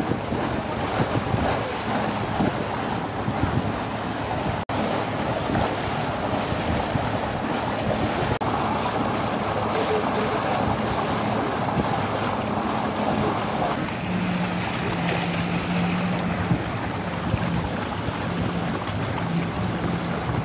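Water rushing and splashing along the hull of a motorboat under way, with a steady engine hum beneath and wind on the microphone. About two-thirds of the way through, the engine note drops slightly and the rushing eases.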